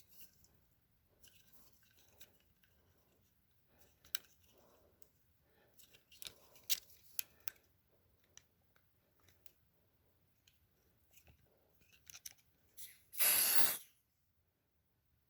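Small handling clicks and rustles, then near the end one short hiss of under a second from a Smoke Sabre aerosol smoke-detector tester being sprayed.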